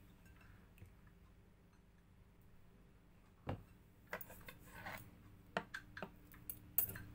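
Metal chopsticks being picked up and handled: a series of light clicks and taps, metal on metal and on the tabletop, starting about three and a half seconds in, over a faint steady hum.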